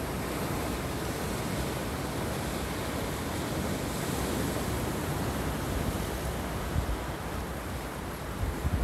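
Sea surf breaking on rocks and washing over a pebble beach, a steady rushing wash, with some wind rumbling on the microphone near the end.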